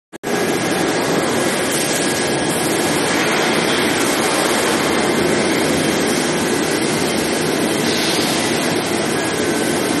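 Steady machine noise of a drill pipe induction hardening and tempering line running in a factory hall: an even, unbroken noise with a few faint high steady tones over it.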